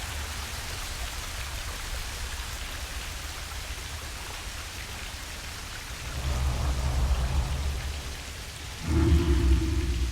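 Steady rain noise, with two louder deep rumbles about six and nine seconds in.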